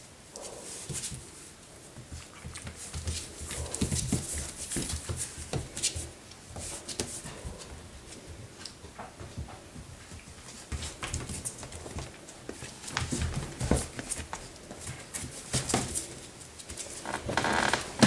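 Four-week-old puppies play-fighting: short puppy vocalizations over scuffling, scratching and rustling of bedding and newspaper, louder near the end.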